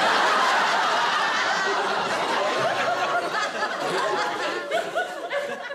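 Studio audience laughing: a loud wave of laughter that breaks out at once, then thins out near the end.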